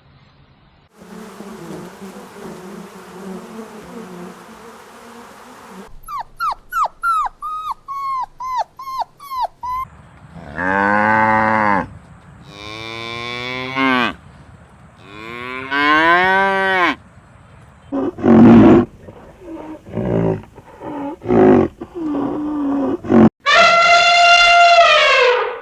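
A run of farm animal calls cut together from several clips: first a noisy stretch, then a quick series of short falling chirps, then long drawn-out calls that rise and fall in pitch, some shorter calls, and one long high-pitched call near the end.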